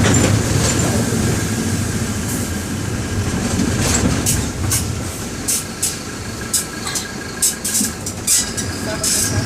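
Mercedes-Benz OM-924 LA four-cylinder diesel of a city bus running under way, heard from inside the bus. Its low drone is strong at first and fades after about five seconds. A run of sharp clicks and rattles follows in the second half.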